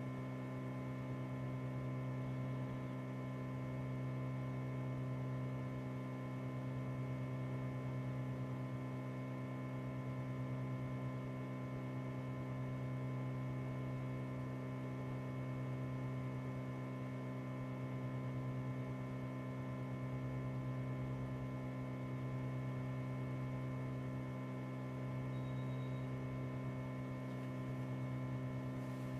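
Steady electrical mains hum with many overtones, its lowest note the strongest, swelling and easing slightly every few seconds.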